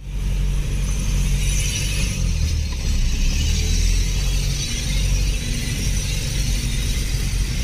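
A 4x4 driving slowly over a dirt track, heard from inside the cabin: a steady low engine drone under a constant hiss of the running gear and tyres.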